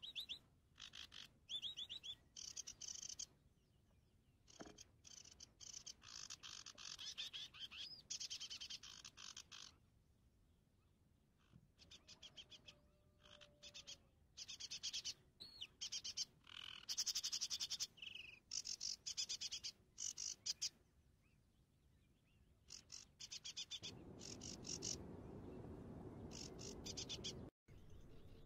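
Frogs calling in fast pulsing trills that start and stop in bouts, with a few bird chirps. Near the end, a low rushing noise lasts about three and a half seconds.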